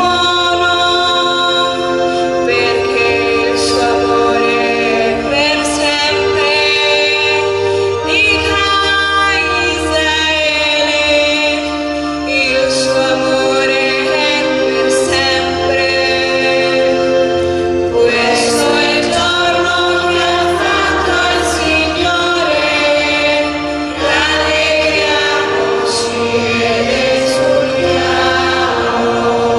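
Responsorial psalm being sung: a woman's solo voice alternating with a choir over sustained accompaniment chords.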